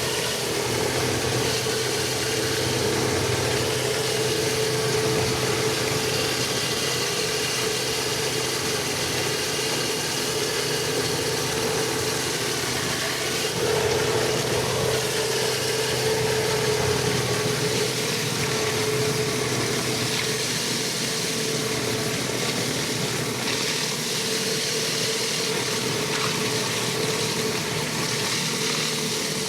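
Pressure washer running steadily: an engine's even drone with the hiss of the water spray over it.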